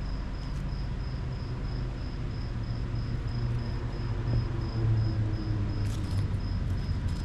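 Insect chirping: an even, high-pitched chirp repeating about four times a second, over a low rumble of traffic that grows louder near the end.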